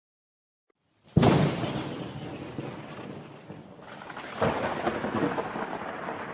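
A sudden loud crash about a second in, fading into a rumbling noise that swells again about four seconds in, then cuts off suddenly.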